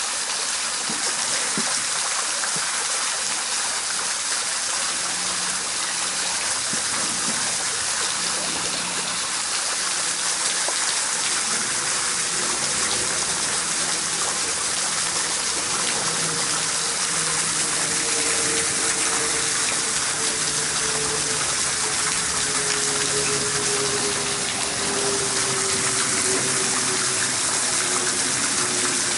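Steady rushing and splashing of a small waterfall pouring into a pool, an even hiss without a break.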